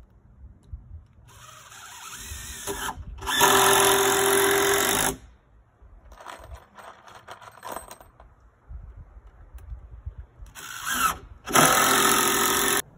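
Cordless drill driving screws into wooden boards in two runs: one about a second in that builds to full speed and stops about five seconds in, and a second near the end. Between them come faint small clicks and rustles.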